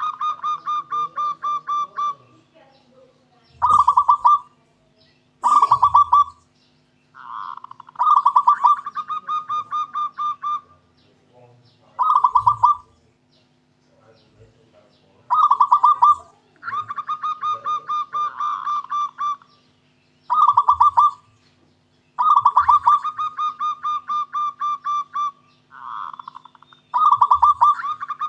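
Zebra dove (perkutut) singing: about ten phrases of quick, evenly pulsed cooing notes at a steady pitch, some short and some running two to three seconds, with short pauses between.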